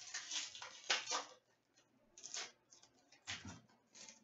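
Hockey trading cards and packs being handled by hand, heard as a handful of short, faint rustles and slides, with a light tap or two against the table.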